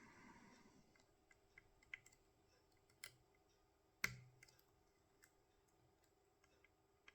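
Faint, scattered metallic clicks of a pick working the pins of a tubular hex core lock under tension, with one sharper click about four seconds in.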